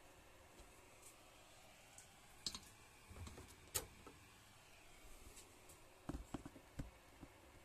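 A few sharp plastic clicks and light knocks as a USB stick and cables are handled at a bare motherboard's ports, with a sharp click about two and a half seconds in, the loudest almost four seconds in, and a quick run of softer knocks near the end, against near silence.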